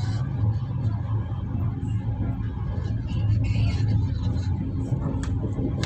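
Steady low rumble of a vehicle's engine and tyres heard from inside the vehicle as it drives along an unpaved track, with a few short rattles and a sharp click near the end.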